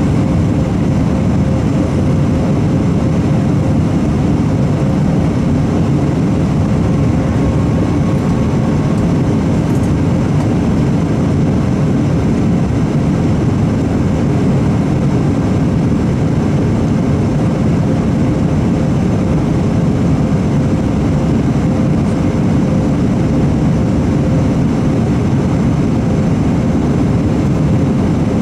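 Airbus A319 cabin noise in the climb just after takeoff: the steady drone of the jet engines and rushing airflow, heard by a camera at the window over the wing, with a faint steady whine above it.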